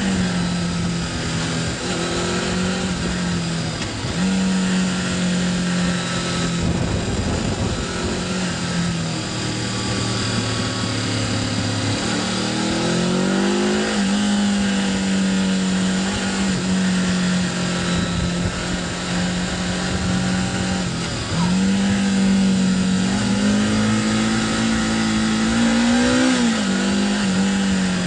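Suzuki GS500's air-cooled parallel-twin engine running under load on the move, its note dipping and climbing again a few times as the throttle changes, under a constant rush of wind and road noise.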